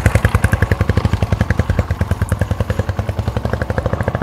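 Royal Enfield single-cylinder four-stroke engine running at low revs, an even thumping of about ten beats a second.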